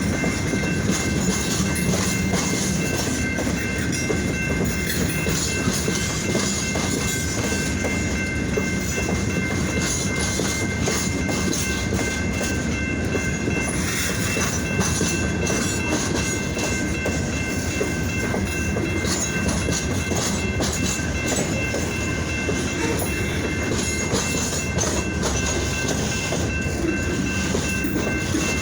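Freight train rolling past at steady speed, its wheels clacking over the rail joints in a continuous rumble, with a faint steady high-pitched whine above it.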